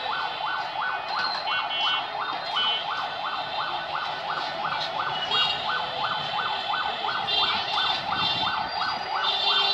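A siren-like electronic tone sweeping over and over at about three sweeps a second, without a break, with short higher tones coming and going above it.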